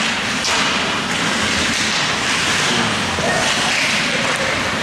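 Ice hockey rink during play: a steady hiss of skate blades on the ice, with faint distant voices.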